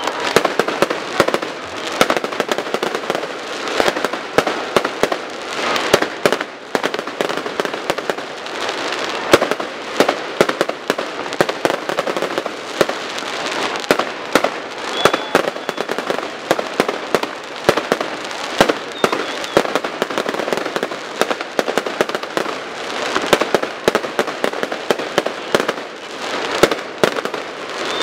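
Fireworks display going off without pause: a dense stream of bangs and crackling from bursting aerial shells, with a couple of short high whistles.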